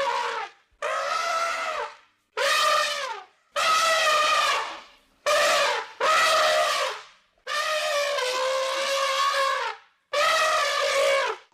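Elephant trumpeting: a series of about eight calls, each about a second long with short gaps between them. One call near the end lasts about two seconds.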